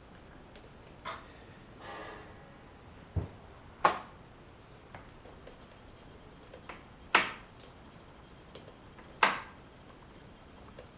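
Hands working metal parts at a lathe: four sharp metallic clacks and one dull knock, spaced a few seconds apart, over low shop room noise.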